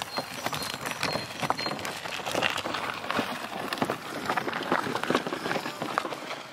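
Wheels of a canoe trolley rolling over gravel and stony dirt, a continuous irregular crunching and clicking of small stones under the tyres.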